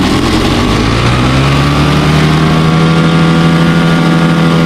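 Single-cylinder four-stroke engine from a Bajaj Pulsar motorcycle driving a homemade boat, revving up over the first two seconds and then holding a steady high note as the boat gets up to speed. It runs through a bare exhaust pipe with no silencer, which makes it very loud.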